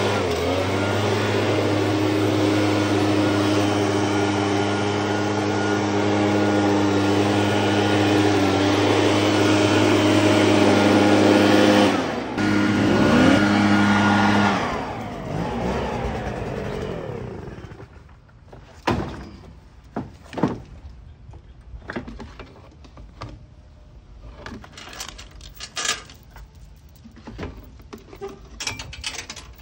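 Gas backpack leaf blower engine running steadily at speed, then shut off about fourteen seconds in and winding down with a falling pitch. After that, scattered sharp knocks and clacks.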